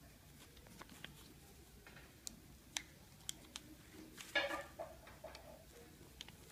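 Faint clicks and taps of medical supplies being handled on a padded table, with a brief crinkle of a transparent dressing package being picked up about four seconds in.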